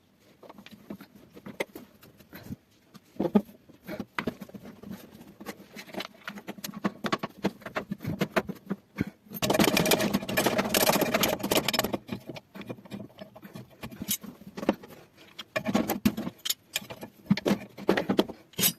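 Hand work on a washing machine's shock absorber mounting: scattered clicks and knocks of parts being handled, with a stretch of dense rattling and scraping about halfway through, lasting roughly two and a half seconds.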